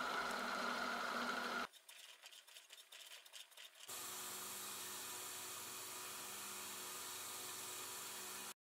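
A drill boring into a metal part held in a vise for the first second and a half, then a quieter stretch of faint taps. From about four seconds in, a belt grinder runs with a steady hum while a small metal part is held to its belt, stopping abruptly near the end.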